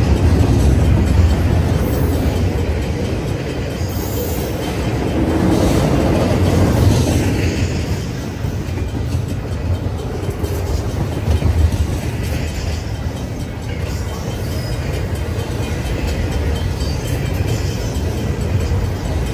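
Double-stacked intermodal freight train running past at track speed: a steady, loud rumble of steel wheels on rail with some clickety-clack.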